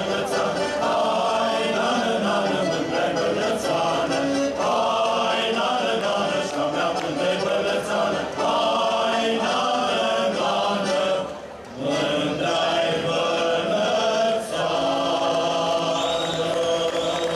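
A choir singing a folk song, its lines moving in several voices, with a brief break about eleven and a half seconds in before the singing resumes.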